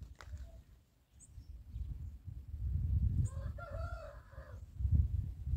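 A rooster crows once, a call of a little over a second starting about three seconds in, over a low rumble of wind on the microphone. Two brief high chirps from small birds come before it.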